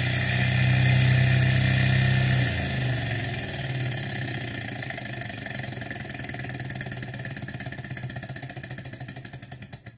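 Small Stirling engine turning a DC-motor generator, running steadily with a hum, then, about two and a half seconds in, slowing and fading over several seconds as its stroke beat grows slower and fainter. The slowdown is the engine stalling under the heavy load of an empty supercapacitor being charged from the generator.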